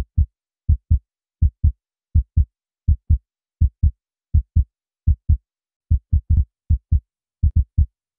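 Heartbeat sound effect: paired low thumps (lub-dub) about 80 times a minute, which grow uneven about six seconds in and come quicker near the end.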